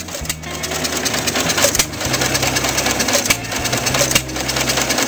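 Antique John Deere stationary engine with twin flywheels running and driving an ice cream churn: a fast, even mechanical clatter over a steady low hum.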